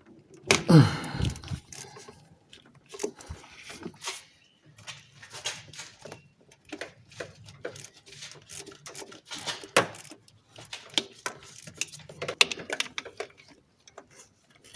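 Irregular clicks and taps of hand tools on metal while the nuts on the starter motor's signal and main power wire terminals are undone, after a brief falling voice-like sound near the start.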